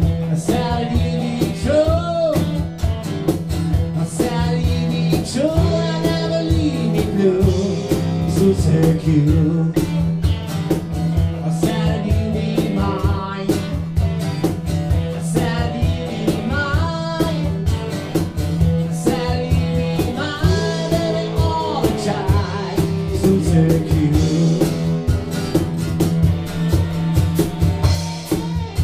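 Live blues-rock band playing: electric guitar lead with bending notes over strummed acoustic guitar and a drum kit keeping a steady beat.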